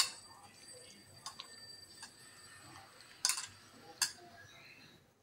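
Hand mixing marinated chicken pieces in a stainless steel bowl: a faint wet squishing broken by a handful of sharp metallic clicks as the bowl shifts and knocks. The loudest clicks come at the start and a little after three seconds in.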